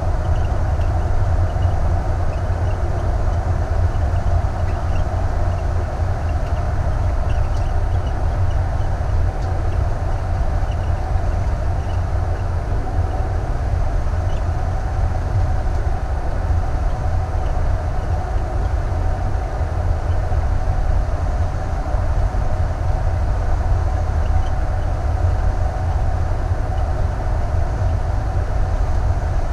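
Thor Vegas motorhome cruising at highway speed: a steady, unbroken low rumble of road, engine and wind noise.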